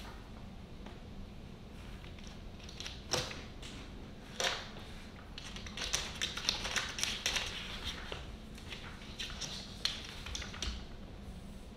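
Light clicks and taps from a cat squeezing through a wooden gate's cat door and stepping onto a hard floor: a couple of single taps, then a quick run of clicks in the second half.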